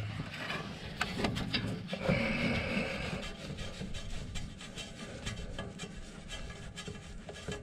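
Fingers working a terminal nut off the stud of a Perkins starter motor, with a washer, and handling its wires. It makes faint rubbing and scraping with scattered small metallic clicks, and a longer scrape between about two and three seconds in.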